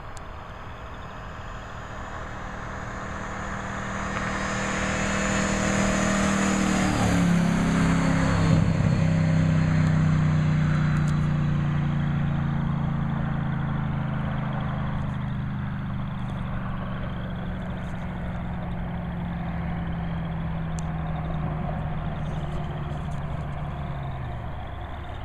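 Ford F-150 pickup driving past. The engine swells as the truck approaches, drops in pitch as it passes about seven seconds in, then fades slowly as it pulls away.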